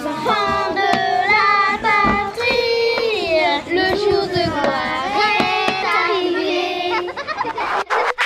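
Sung title jingle: a high voice sings a held, gliding melody over a backing track with light percussive clicks.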